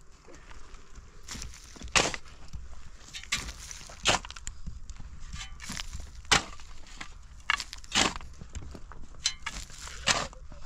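Repeated hard strikes of a hand tool: a loud blow about every two seconds, with lighter knocks in between.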